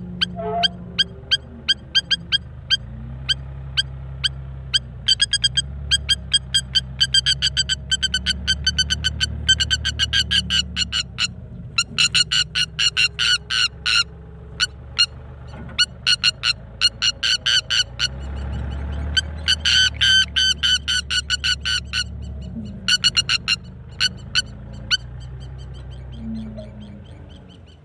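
Spur-winged lapwing giving long runs of sharp, rapidly repeated alarm calls, in bursts of several seconds with short breaks, while a tractor engine runs low and steady underneath.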